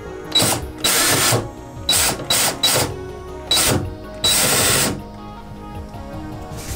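Cordless drill-driver running in about seven short bursts, backing the screws out of a cabinet door hinge to take the door off, then stopping about five seconds in.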